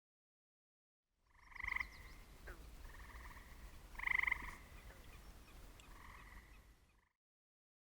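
Four short animal calls, each a pair of steady tones about half a second long; the third is the loudest. A faint low rumble runs underneath. The sound cuts in from dead silence about a second in and cuts off abruptly near the end.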